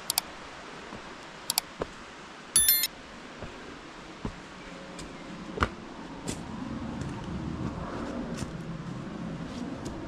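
Sound effects of a subscribe-button animation: mouse clicks near the start and about a second and a half in, then a short bell-like chime about two and a half seconds in, the loudest sound. Under them is a steady background hiss that grows louder in the second half.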